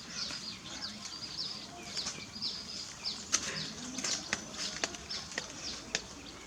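High-pitched animal chirps, short falling notes several a second, with scattered sharp clicks and taps.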